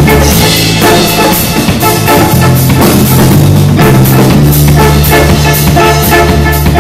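A live band playing an instrumental dub-reggae jam: a drum kit and electric guitar over steady, held low bass notes.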